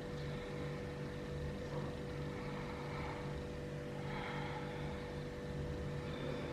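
Steady low background hum with a constant mid-pitched tone running underneath, room noise without speech.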